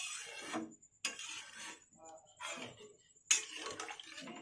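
A spatula stirring and scraping in a cooking pot of potatoes and cauliflower in water, in four short strokes with pauses between.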